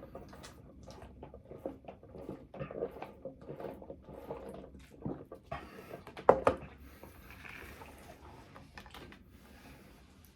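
Close-miked eating sounds: irregular chewing and mouth noises, with a louder burst about six seconds in.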